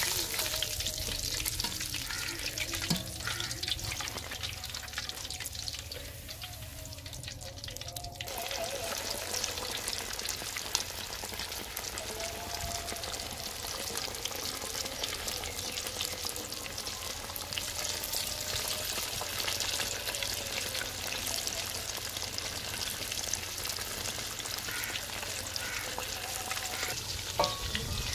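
Besan-battered fish deep-frying in hot oil in a large steel pot: a continuous crackling sizzle that grows louder and denser about eight seconds in, as a fresh batch goes into the oil. A single sharp knock near the end.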